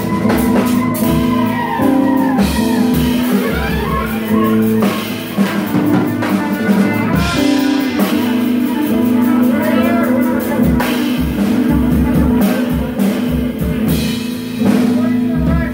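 Live small-group jazz: guitar and drum kit with cymbals playing, with trumpet over them.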